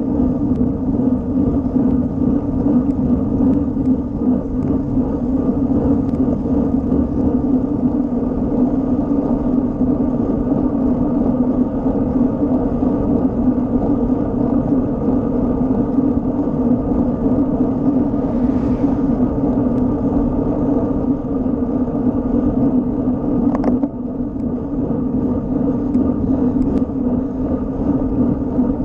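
Steady rush of wind and road-tyre noise on a road bike's action-camera microphone, riding at about 20–25 km/h, with one brief click about three-quarters of the way through.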